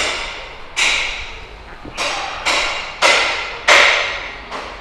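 A series of about seven sharp knocks at uneven intervals, each ringing out briefly before the next.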